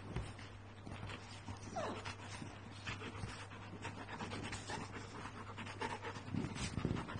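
A chocolate Labrador and a yellow Labrador puppy play-fighting on a leather sofa: faint panting with scuffling and rustling against the leather. There is a short squeak about two seconds in.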